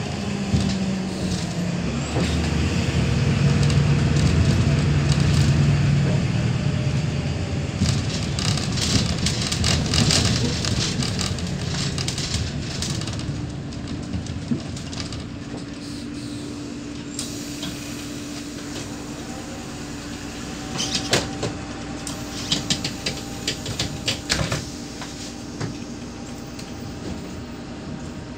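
Cabin sound of a Neoplan K4016td city bus under way: its MAN D0826LOH17 inline-six diesel runs loud at first and eases off about halfway, when a steady whine, the ZF 5HP500 automatic gearbox, comes in and holds. Two spells of rattles and knocks from the body and fittings come over the running noise.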